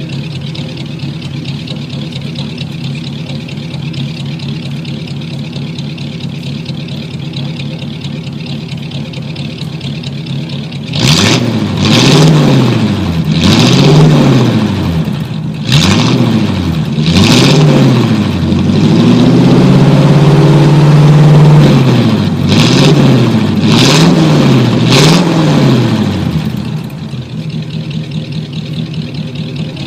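Old 1949 car engine idling steadily, then revved about ten seconds in: a string of quick blips, each rising and falling in pitch, with one rev held high for a couple of seconds, before it drops back to idle.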